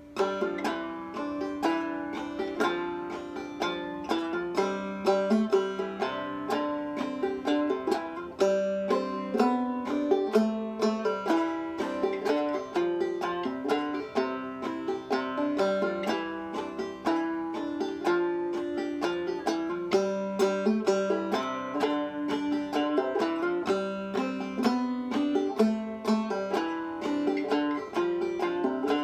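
Solo five-string banjo played clawhammer style in Double C tuning (gCGCD), a brisk old-time tune in the key of C picked out in a steady, even rhythm of bright plucked and brushed notes. The playing begins right at the start.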